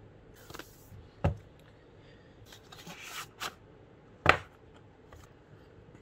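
Cardboard box packaging being handled and opened: rustling and scraping, with two sharp knocks, one about a second in and a louder one near the end.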